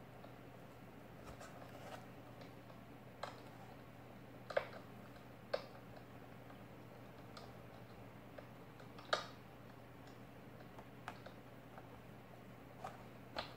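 Scattered light clicks and taps of plastic blister packaging and small display pieces being handled and set down by gloved hands, about seven in all over a faint steady hum.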